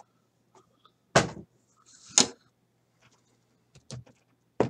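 A handful of sharp knocks and clacks from cards being handled and set down on a tabletop, with a brief sliding rustle about two seconds in.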